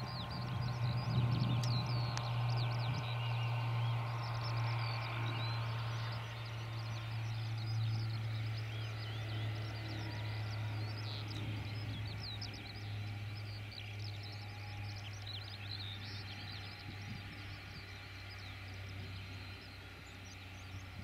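Class 47 diesel locomotive's Sulzer twelve-cylinder engine running with a steady low drone that slowly fades, while small birds chirp and twitter throughout.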